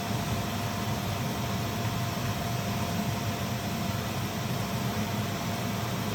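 A steady mechanical whir with a low hum, like a running fan, unchanging throughout.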